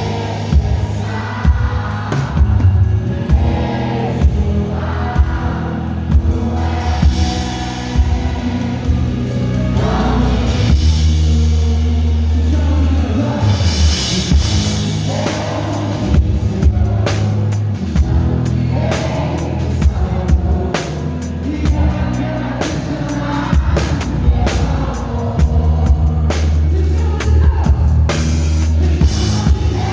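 Live worship band playing: a singing voice over a drum kit and deep sustained bass notes, with the drumming growing busier in the second half.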